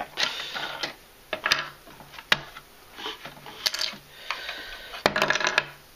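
Plastic LEGO bricks clicking and clattering as a section of a brick-built model is pulled off and handled, with several sharp separate clicks.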